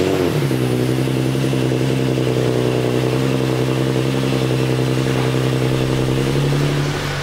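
Infiniti G37x's V6 with an ISR single-exit exhaust, catching just after cranking and then idling loud and steady. It eases slightly quieter near the end.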